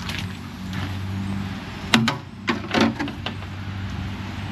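A steady low hum over a faint hiss, with four sharp knocks about two to three seconds in, as the tanker delivery gear is handled.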